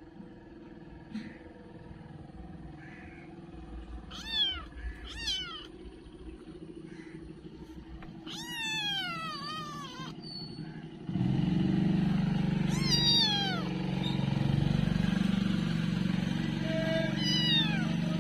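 Kitten meowing: two short meows, then a longer drawn-out meow, then several more meows over a louder steady background hum in the second half.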